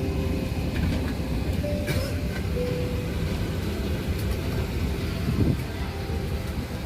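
A vehicle running with a steady low rumble and a few faint clicks and rattles.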